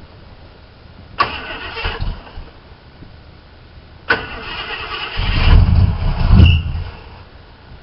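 Jeep engine being cranked on its starter in short tries on a cold start: a brief crank about a second in, then a longer crank about four seconds in during which the engine fires for a couple of seconds before dying away.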